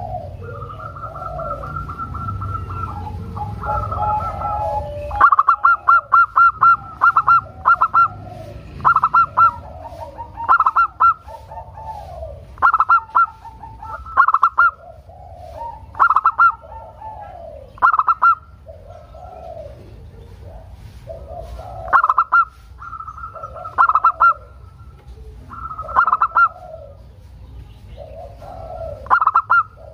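Zebra dove singing: a run of quick, stuttering high notes followed by lower falling coos, repeated about every two seconds.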